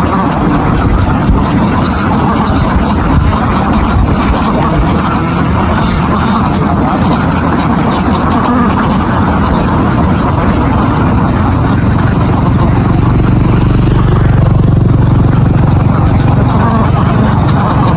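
Truck engine running steadily, its low rumble growing heavier from about two-thirds of the way in.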